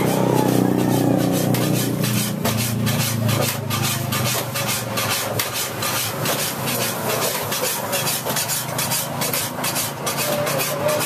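Metalworking in a leaf-spring knife forge: a fast, even run of sharp strokes, about four a second, over a low rumble that fades after the first few seconds.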